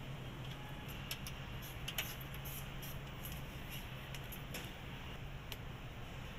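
Car-assembly factory floor ambience: a steady low machinery hum with scattered clicks and ticks from parts and tools being handled, the sharpest about two seconds in.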